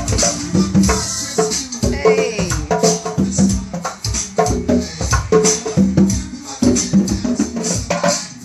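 Three conga drums played by hand in a steady rhythm, over recorded backing music with sustained pitched parts.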